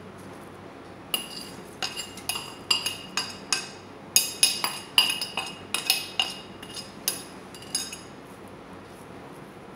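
Spoon clinking repeatedly against a small bowl while fried onions are served out of it onto biryani rice. The sharp, ringing clinks come about three to four a second, starting about a second in and stopping shortly before the end.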